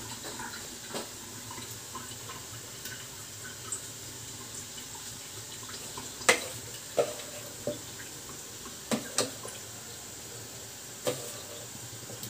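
Water boiling in a stainless steamer pot over a gas burner, giving a steady hiss. A few sharp clinks cut through it, the loudest about six seconds in, then several more over the next five seconds, some with a short ring.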